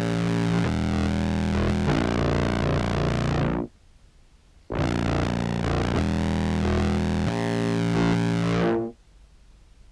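Contrabass clarinet samples played through a filter and fuzz effects chain: two sustained, low, distorted phrases of about four seconds each, with a short pause between. The top end closes down just before each phrase cuts off.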